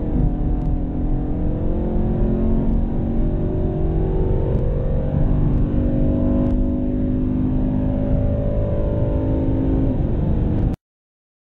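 A muscle-car V8 engine pulling hard at high speed in an upper gear, its note rising steadily, with a gear change about six and a half seconds in. The sound cuts off abruptly shortly before the end.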